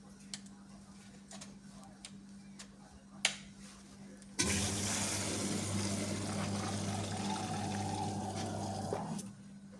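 Replacement dishwasher water inlet solenoid valve energized on test: a click, then water rushes through the opened valve with a low mains hum from the coil for about four and a half seconds, stopping abruptly when the power is cut. The valve opens, so it works.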